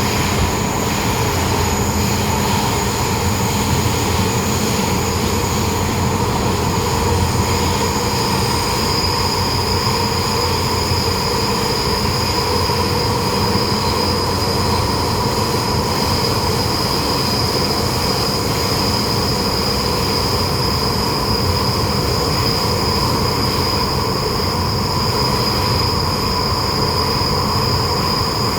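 MTR M-Train on the Tseung Kwan O Line running, heard from inside the car: a steady rumble of wheels on rail and running gear with constant high whines. One high whine joins about eight seconds in and holds to the end.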